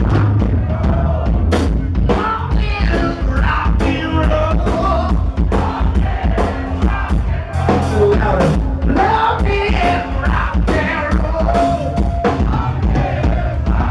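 Live rock band playing loudly, heard from the audience: drums, electric guitar and bass, with a singer's voice over the top.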